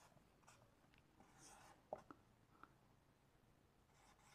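Faint whiteboard marker strokes, with a soft squeak about a second and a half in and a light tap of the marker tip about two seconds in.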